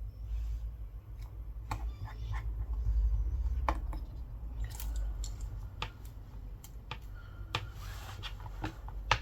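Irregular small clicks and taps of hand repair tools and parts being handled on a workbench, over a low steady hum.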